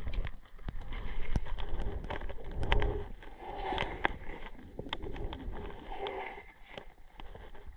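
Muffled underwater handling noise: many irregular clicks and knocks against the camera's waterproof housing over a low rumble of moving water.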